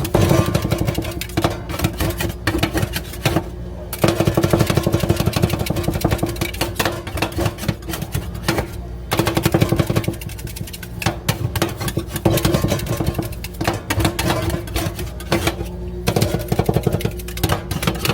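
Metal spatulas rapidly chopping and beating ice cream on a frozen steel plate: a fast clatter of metal-on-metal strikes with a few short pauses, over a steady hum.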